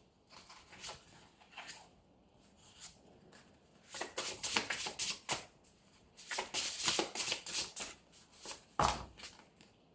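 Tarot cards being shuffled by hand: two flurries of quick papery clicks, with a few single clicks between, then one soft thump near the end.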